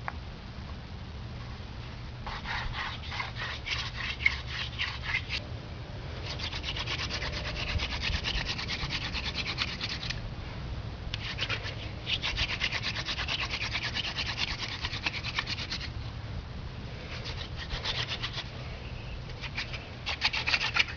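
Hand-drill fire by friction: a horseweed spindle spun back and forth between the palms, grinding in a fireboard notch with a fast scratchy rubbing. It comes in five bouts of a few seconds each, with short pauses between them.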